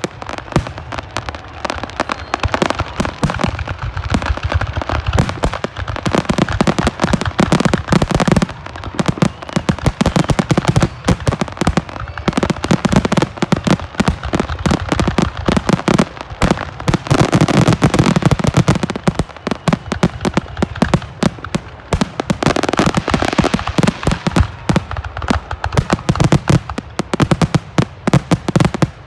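Fireworks going off in rapid, continuous succession: a dense barrage of bangs and crackling pops, many overlapping every second.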